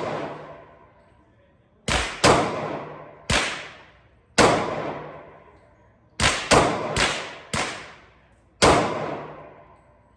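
Nine pistol shots from a Glock 23, fired at an uneven pace, some in quick pairs and a run of four close together near the end, each followed by about a second of echo dying away.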